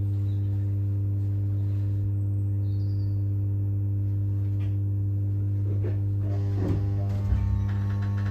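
Steady electrical hum inside a Class 319 electric multiple unit carriage, one low droning tone with several overtones that does not change. There are a couple of faint short knocks near the end.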